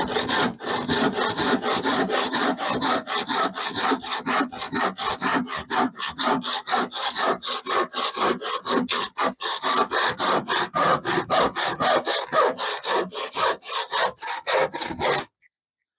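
Handsaw cutting through a length of 40 by 40 treated timber, in quick rhythmic push-pull strokes of about four a second, stopping abruptly near the end as the cut goes through.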